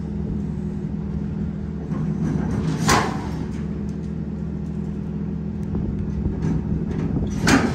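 Tow truck's engine running steadily as it slowly pulls an empty trailer out from under a building. Two sharp knocks sound, about three seconds in and again near the end.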